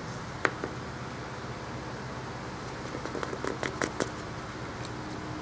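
Light taps and paper handling noises as a stamped card is flexed and tapped over a jar to knock excess embossing powder back in: one sharp tap about half a second in, then a flurry of small ticks and taps about three seconds in, over a steady low hum.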